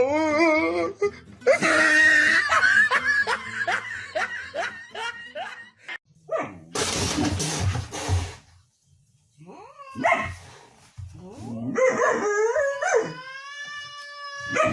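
A pet animal's drawn-out, wavering howling calls and shorter yelps, several in a row, with a burst of noise about seven seconds in.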